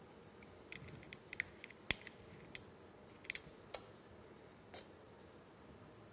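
Faint, irregular metallic clicks and ticks of a wrench working loose the oil drain plug on an air compressor's crankcase, about a dozen over three seconds and one more near the end.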